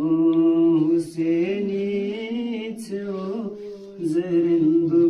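A man chanting a devotional Islamic verse without accompaniment. He holds long notes and sings wavering, ornamented phrases, with short breath pauses between lines.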